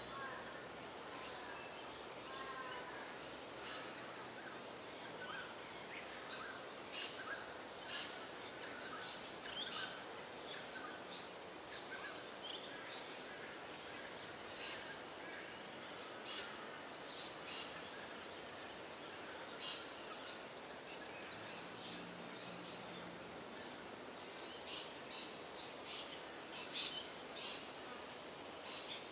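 Outdoor bush ambience: a steady high insect drone, with scattered short, high bird chips throughout and a few brief descending twitters in the first few seconds.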